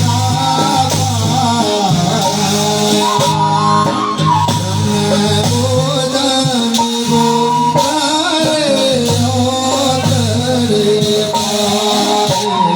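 Himachali folk song performed with a singing voice over steady held accompanying tones and a jingling shaker-type percussion.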